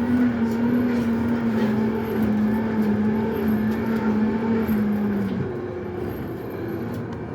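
Blacksmith's forge running: a steady rush with a strong hum that slowly drops in pitch and cuts off about five seconds in.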